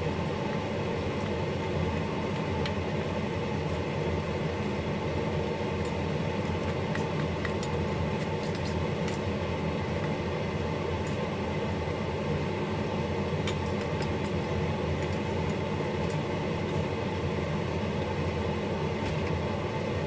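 A steady mechanical hum from a running motor, such as a fan, with scattered faint clicks of a spoon scraping chicken paste off the plastic blades of a pull-string food chopper.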